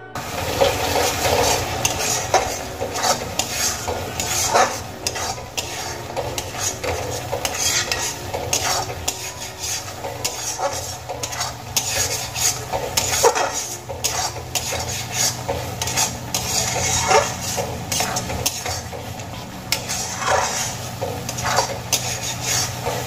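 Metal spatula stirring and scraping a thick onion-ginger-garlic masala paste around a metal kadai, in many quick irregular strokes, with the paste sizzling in the oil as it is fried down until the oil separates.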